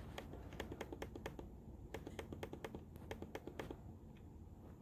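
A faint run of about twenty quick, light clicks, irregularly spaced, as a web page on a laptop is scrolled down. The clicks stop a little before four seconds in.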